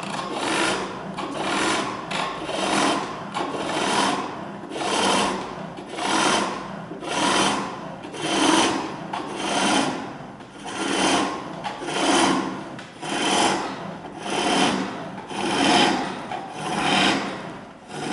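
Turning chisel cutting a spinning wooden handle on a foot-powered pole lathe. The work turns back and forth on the cord, giving a rhythmic scraping cut with each treadle stroke, about one stroke a second.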